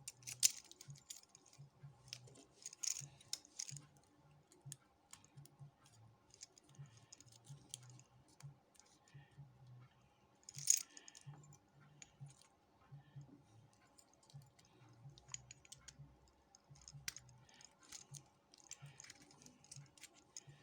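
Scattered small metallic clicks and taps from a Jedo 5-pin rim cylinder being taken apart by hand, its small parts being handled. One sharper click comes about ten and a half seconds in.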